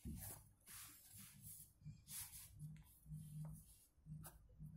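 Near silence, with faint rustles of hands and a pen on a notebook page.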